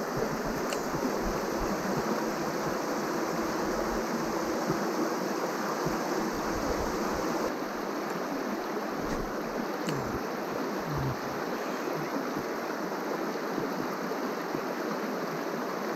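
Shallow creek running over rocks and riffles: a steady rush of water.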